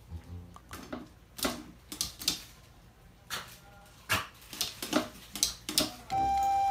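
Irregular sharp taps and clicks as a Yorkshire terrier moves about and paws at a glass tank, coming thicker in the last couple of seconds. Background music comes in near the end.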